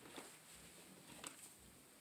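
Near silence: room tone with two faint short ticks.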